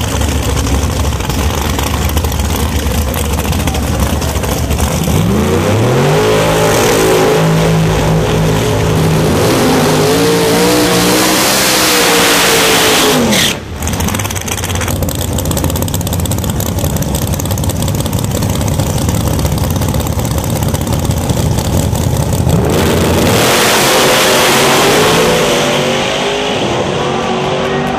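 Nitrous Pro Mod drag cars' big-block V8 engines running loud through a burnout: the revs climb in steps from about five seconds in and hold high, then drop suddenly around thirteen seconds in. The engines keep running loud and rough as the cars stage, and the revs rise again briefly near the end.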